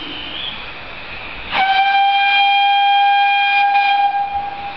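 Whistle of a 15-inch-gauge miniature steam locomotive: one long, steady, single-note blast that starts abruptly about a second and a half in and lasts nearly three seconds, over a steady background rush.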